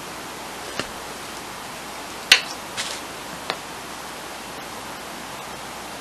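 A few light clicks and taps from handling a small acrylic craft paint bottle and brush, the loudest a little over two seconds in, over a faint steady hiss.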